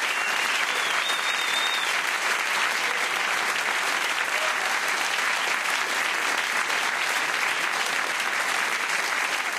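Studio audience applauding steadily at the end of a cabaret performance.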